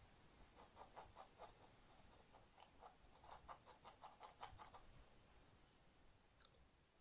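Faint scratching of a metal dip-pen nib on paper as short ink strokes are drawn, a quick run of small scratches that stops about five seconds in.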